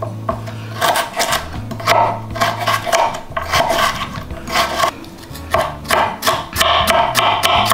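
Knife slicing vegetables on a wooden cutting board, mostly carrots being cut into thin julienne strips: a quick, irregular run of strokes on the wood.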